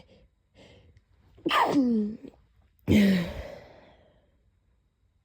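A person sneezing twice, about a second and a half apart. Each sneeze starts suddenly with a voiced sound falling in pitch, and the second trails off.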